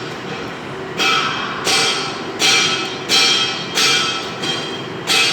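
Repeated ringing metallic strikes, roughly one every 0.7 seconds, starting about a second in, each with the same ringing tones fading quickly, over a steady workshop background noise.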